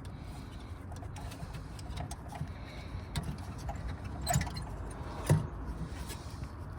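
Light clicks and small rattles of a headlamp bulb and its metal retaining spring clip being worked loose in the headlamp housing, with a sharper click about five seconds in, over a low steady rumble.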